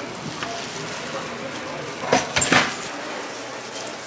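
Background noise of a busy gimbap shop kitchen, with a short clatter of a few sharp knocks about two seconds in.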